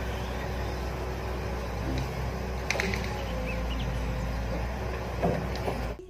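Diesel engine of a tracked log-loading excavator running steadily while its grapple swings logs onto a truck, a low even rumble, with a few faint high chirps and a light knock about two and a half seconds in.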